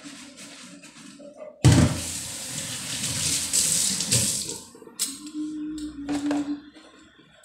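Kitchen tap turned on about two seconds in, water running into a stainless-steel sink over hands and dishes being rinsed for about three seconds, then shut off. A few light knocks and handling sounds follow.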